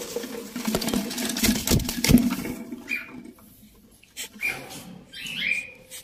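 Parrots flapping and scuffling, a dense rustling clatter of wings and feet for the first couple of seconds, followed by a few short squawks.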